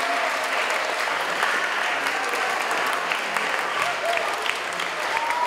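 Audience applauding steadily: a dense patter of many hands clapping, with a few voices heard through it.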